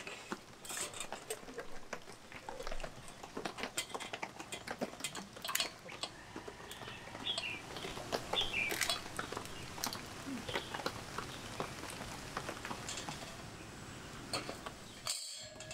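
Handling sounds of a small round charcoal grill being set up: scattered taps, clicks and rustles as the pot comes out of its fabric carry bag, charcoal blocks are set on the wire rack, and a steel wire grate is laid on top.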